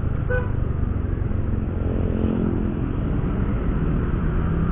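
Honda Vario 125 scooter on the move: its single-cylinder engine running under a steady low rumble of wind and road noise, with a faint engine note rising briefly about two seconds in.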